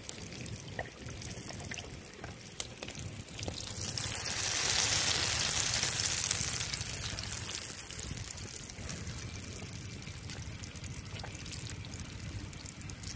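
Batter-coated chicken pieces deep-frying in hot oil in an open pan, a steady sizzle that swells louder about four seconds in and eases back after about seven seconds.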